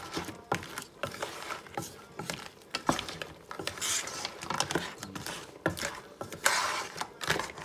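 A utensil stirring lobster and crab pieces in their shells with vegetables and sauce in a pan: irregular clicks and knocks of shell and utensil against the pan, with a couple of longer scraping sweeps, about four seconds in and near the end.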